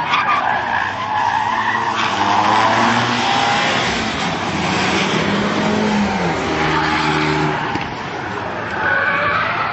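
Tyres screeching as a car slides sideways through a corner, with car engines revving up and down at high speed.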